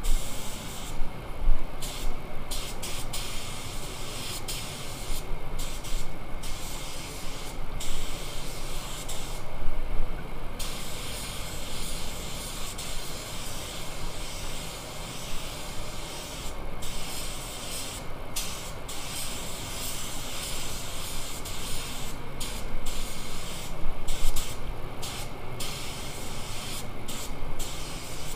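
Compressed-air paint spray gun hissing in repeated passes, the trigger pulled and released so the hiss stops and starts many times, over a steady low background rumble.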